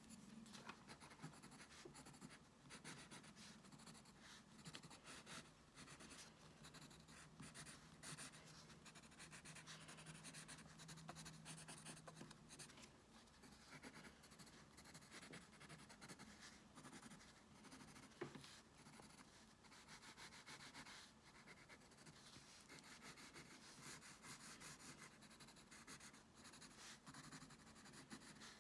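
Faint scratching of a pencil crayon on sketchbook paper, in many short, quick strokes.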